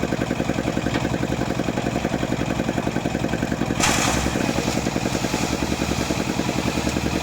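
A small engine running steadily with a fast, even beat; about four seconds in a hissing noise joins it and carries on.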